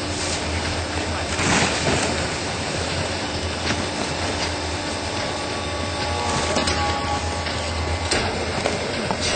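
Automatic baler running: a steady mechanical drone with a low hum underneath, and a few scattered knocks and clicks.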